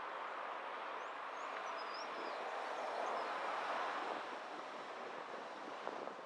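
Road noise from driving in city traffic: a steady rush of tyres and passing vehicles that swells about three seconds in, then settles.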